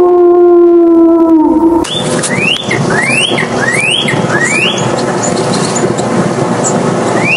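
A grey wolf howls, one long held note that sags in pitch and dies away about two seconds in. Then a northern cardinal sings a run of rising whistled notes, about two a second, over a steady hiss.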